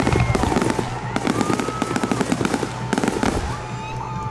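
Aerial fireworks bursting and crackling in a rapid run of pops that thins out near the end.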